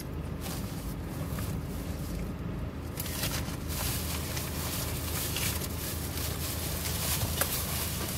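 Steady low hum inside a car cabin with the engine running. From about three seconds in, it is joined by chewing and the crinkly rustle of a paper sandwich bag.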